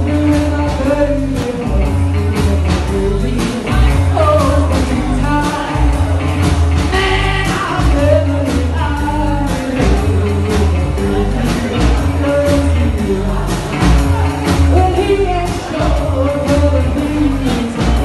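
Live rock and roll band: a female singer singing over a walking upright double bass, drum kit and electric guitar, with a steady beat.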